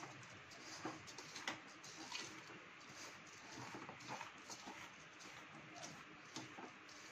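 A hand mixing dry wheat flour and sugar in a steel bowl: faint rustling and scraping with scattered soft, irregular taps and clinks.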